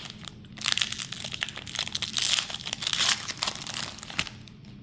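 Foil wrapper of a Pokémon 151 booster pack crinkling as it is handled and torn open, dying down shortly before the end.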